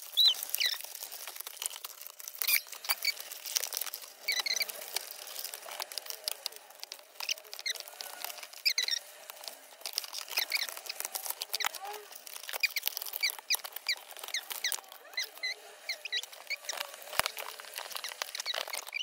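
Doll packaging being handled: a rapid run of clicks and short high squeaks from cardboard and plastic as a doll is worked free of its backing card.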